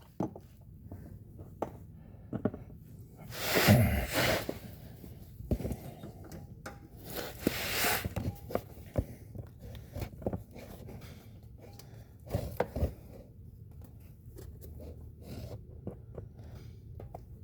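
Scattered light clicks and knocks with a few short rustling swells: hands working a fluid fill hose into a fill hole, plastic and metal handled at close range.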